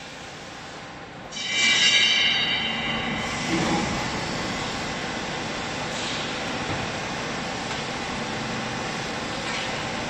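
A vertical hydraulic baler's electric pump starts up about a second in with a high, several-toned squealing whine that lasts a couple of seconds. A knock follows, then the pump runs on as a steady mechanical hum.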